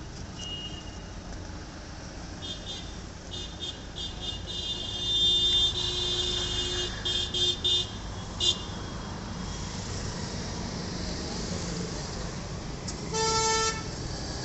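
Street traffic with vehicle horns honking: a run of high-pitched, on-and-off honks through the first half, then one lower honk of about half a second near the end, over a steady traffic rumble.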